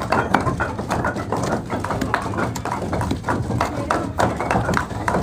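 Many wooden pestles pounding wheatgrass in stone mortars at once: a dense, irregular clatter of knocks, several a second, none in step with the others.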